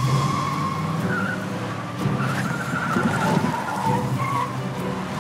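A Cadillac sedan pulling away fast: the engine revs under hard acceleration while the tyres squeal in a wavering high whine.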